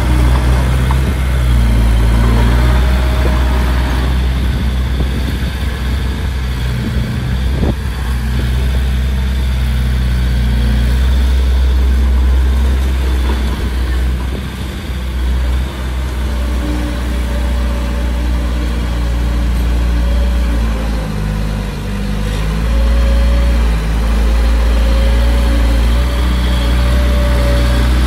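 Heavy diesel engine of earthmoving machinery running steadily with a low drone, its note dropping and picking up slightly a few times.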